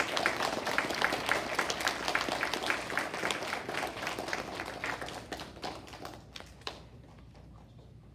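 Schoolchildren applauding, a dense patter of clapping that thins to scattered claps and dies away about six or seven seconds in.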